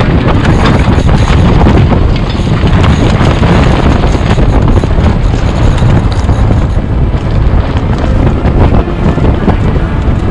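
Strong wind buffeting the microphone on the deck of a sailboat under sail: a loud, steady rushing roar.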